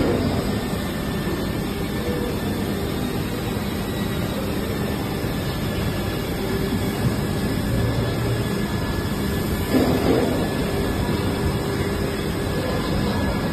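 Injection moulding machine running through a moulding cycle with a steady mechanical noise, with a brief louder sound about ten seconds in.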